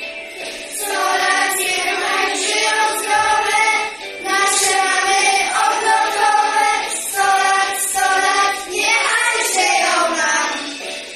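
A small group of young children singing a song together in unison. The singing starts about a second in, breaks briefly twice, and fades out near the end.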